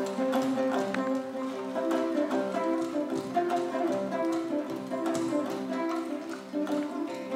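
Kazakh folk ensemble playing string instruments: long-necked dombra lutes and a zhetigen zither plucked over a steady sustained drone, with a melody moving above it.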